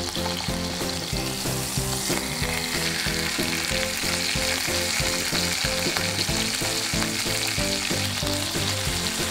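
Bone-in chicken thigh frying in oil in a pan, a steady sizzle, over background music with a steady beat.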